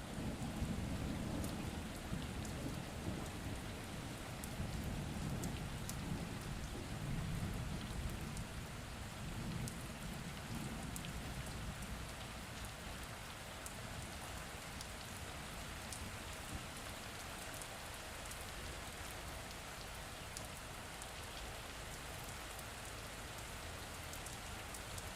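Steady rain, with scattered sharp drops, over a low rumble of distant thunder that fades out about halfway through.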